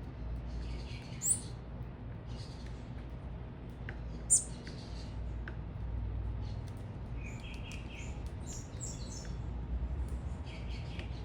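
Small birds chirping in short scattered bursts, with two sharper high notes standing out, about a second in and just past four seconds, and a busier run of chirps in the second half. A steady low rumble runs underneath.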